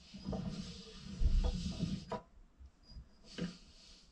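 Handling noises: a few light clicks and knocks with some rustling, and a dull bump a little over a second in that is the loudest sound.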